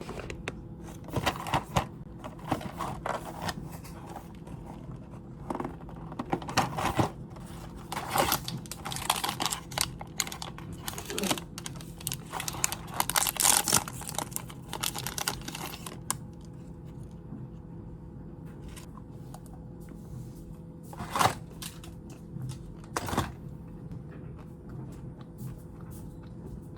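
Food packaging crinkling, rustling and tearing as it is unwrapped by hand. The handling is busy for most of the first half, then turns sparse, with a couple of separate louder rustles near the end.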